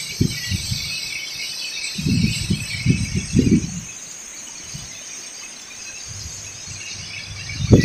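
Strong wind gusting, buffeting the microphone in rumbling bursts a couple of times and sharply near the end, over a steady high rushing hiss.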